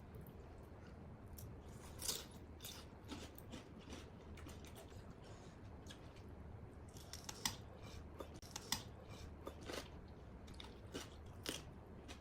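Close-up chewing of a Thai glass noodle salad with fresh vegetables: irregular crisp crunches and small wet mouth clicks, with a few sharper crunches about two seconds in and again between about seven and ten seconds.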